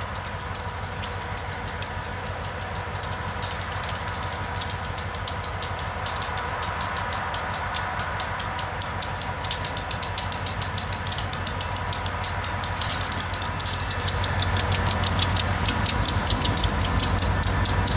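EMD GP40 diesel locomotive with its 16-cylinder turbocharged engine running at low power, the train rolling slowly closer and growing louder. From about seven seconds in, rapid sharp high clicking comes in over the engine.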